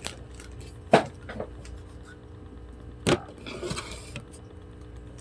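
Items and packaging being handled during an unboxing: a few sharp knocks, the loudest about a second in and another about three seconds in, followed by a brief rustle.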